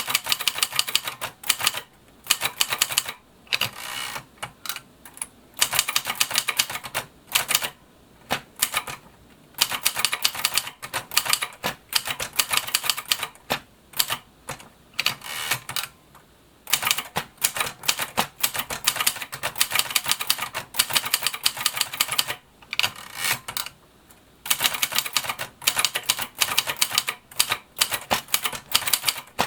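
1979 Kyungbang Clover 950 tabulator Hangul four-set (nebeolsik) typewriter being typed on: quick runs of sharp key strikes broken by short pauses.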